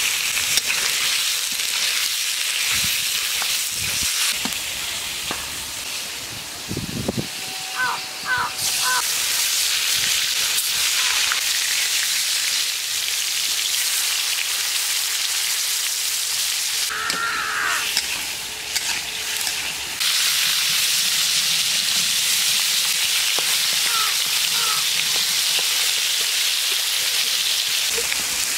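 Hot oil sizzling in a steel wok as cubed vegetables and fish steaks fry: a steady hiss that jumps in level a few times. Near the end a spatula stirs the pieces.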